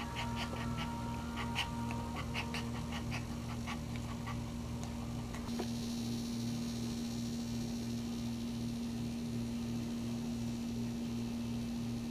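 Small dog in labour whimpering in short, high squeaks, several a second, over roughly the first four seconds. A steady low hum runs underneath throughout.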